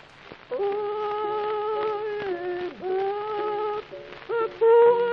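A man singing in a warbling falsetto, starting about half a second in, with long held notes that slide between pitches and a short break near the end, on a thin-sounding early recording.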